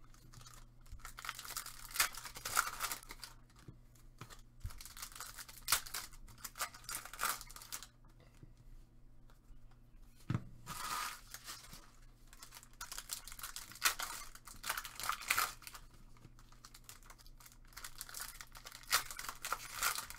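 Trading-card foil pack wrappers being torn open and crinkled, with stacks of cards shuffled and slid against each other in the hands: irregular runs of rustling and tearing with brief pauses between them.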